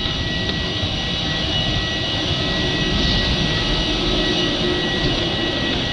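Steady rushing noise with a high, even whine from a running aircraft turbine, heard at the aircraft door and in the jet bridge.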